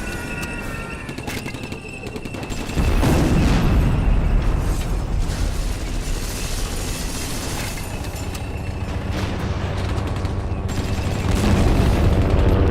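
Sound-effects demonstration mix: rapid gunfire-like shots, then about three seconds in a sudden, loud, deep booming rumble that keeps going and swells again near the end, with music underneath.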